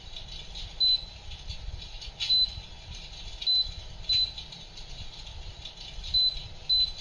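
Electric fireplace's built-in simulated wood-crackling sound: about six short, sharp crackles and pops at irregular intervals over a steady low background noise.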